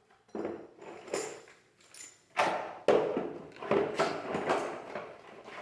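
Hand tools and metal parts at work on a car's rear axle and brake assembly: a run of irregular metallic clanks and scrapes, some with a faint ring.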